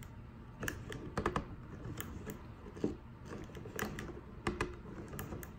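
3D-printed plastic parts of a desktop arbor press clicking and knocking, a dozen or so irregular sharp clicks, as the plastic handle is worked into the crank hub by hand.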